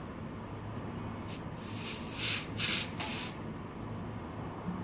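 Short bursts of hissing air, four or five in a row over about two seconds starting about a second and a half in, as a water-filled watch pressure-test chamber is pumped up to simulate a deeper dive.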